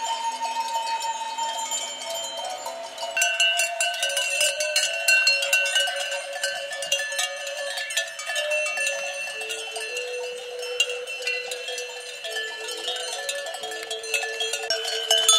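Many sheep bells clanking at once as a grazing flock moves, a jangle of overlapping ringing tones at several pitches.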